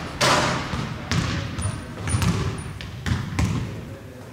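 A series of thuds, about one or two a second, each with a short ringing tail, and three brief high squeaks in the middle.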